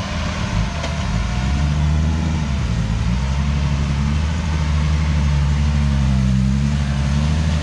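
A loaded Isuzu dump truck's diesel engine working hard as the truck pulls across soft, muddy ground, its pitch rising and falling with the throttle. It grows a little louder as the truck comes nearer.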